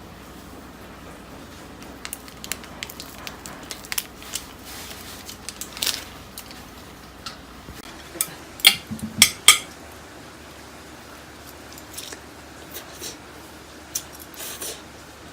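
Eating utensils clicking and scraping against a dish while the fire noodles are handled. There are scattered small taps, with three sharp, loud clicks a little past halfway.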